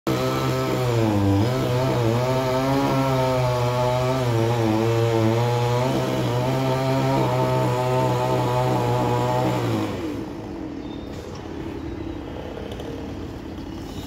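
Chainsaw running at high revs as it cuts into a tree trunk, its pitch sagging and recovering under load. It stops about ten seconds in, leaving a quieter outdoor background.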